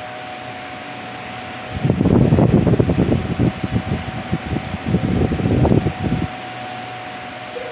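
Philco Turbo 40 cm table fan running, a steady rush of air with a thin steady motor tone. From about two seconds in to about six seconds, a loud irregular low rumbling covers it, then the even fan sound returns.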